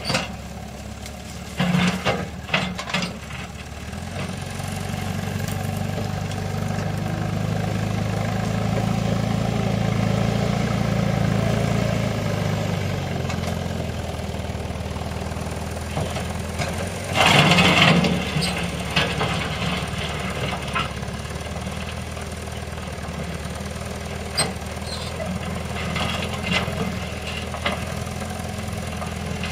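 Volvo BL61 backhoe loader's diesel engine running steadily, working harder and louder for several seconds in the first half as the machine pushes and drags gravel with its front bucket. A brief loud burst of noise stands out a little past halfway.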